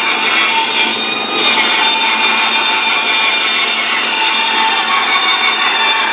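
Harbor Freight bandsaw running and cutting a thin plywood sheet: a steady, high whine from the motor and blade over the rasp of the cut.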